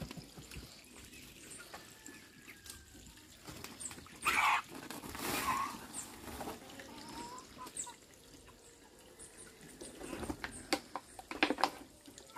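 Chickens calling faintly, with one short loud squawk about four seconds in. Several sharp knocks and rustles come near the end as hanging birds are handled.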